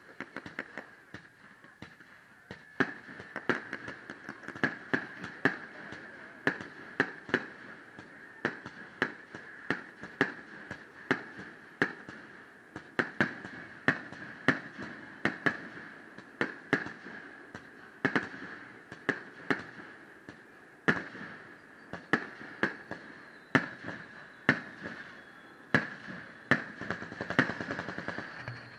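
Aerial firework shells bursting in quick succession, one sharp bang every half second to a second, with a steady high hiss underneath.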